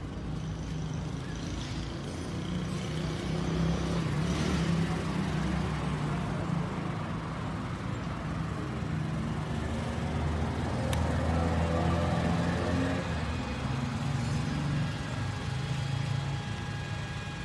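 Benelli RFS 150 motorcycle engine running at low speed through a Rob1 aftermarket exhaust, swelling a little in level twice.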